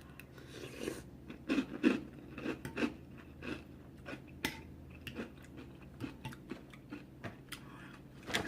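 A person chewing a mouthful of chunky soup, with irregular wet mouth clicks and smacks.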